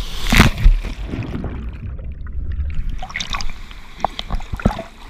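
Pool water splashing under overhead fountain jets, with a loud splash about half a second in. For a second or two the sound goes dull and muffled as the waterproof camera dips under the surface, then short splashes and drips return near the surface.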